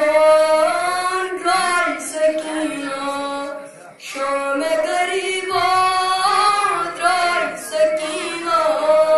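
A boy singing solo, unaccompanied: a devotional lament of the kind recited at a Shia majlis, with long held notes ornamented by wavering glides and a short break about four seconds in.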